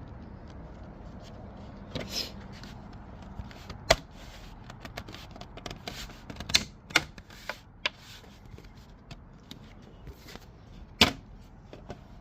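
A small mirror trim cover being handled and pressed onto its two clips. Scattered clicks and knocks, the sharpest about four seconds in and another near the end.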